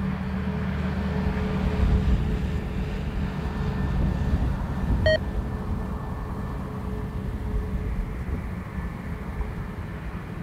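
Airbus A320neo's jet engines running at idle as it taxis, a steady low rumble with a faint steady hum that slowly fades. A short electronic beep about five seconds in.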